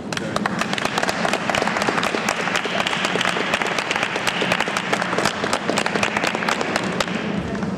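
Audience applause, many people clapping, starting abruptly and dying away near the end.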